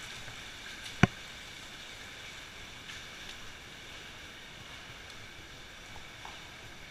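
Steady rushing of a cave stream's water over rocks, with a single sharp knock about a second in.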